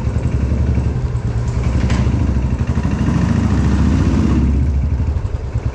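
Royal Enfield Classic 500's single-cylinder four-stroke engine running with its even, rhythmic low beat, picking up a little in the middle and easing back near the end.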